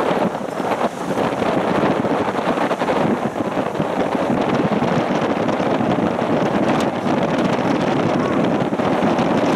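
Strong wind buffeting the microphone in a steady, heavy rush, over the noise of breaking surf.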